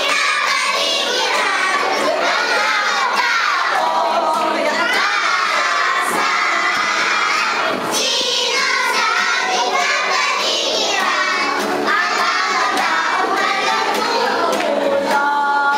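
A group of young children singing together.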